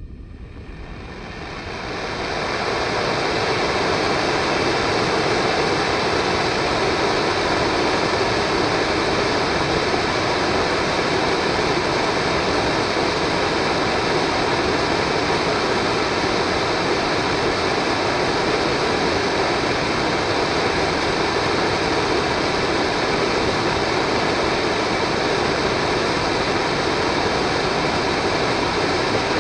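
Model rocket engine firing: a steady rushing jet of noise that builds up over the first couple of seconds and then holds level.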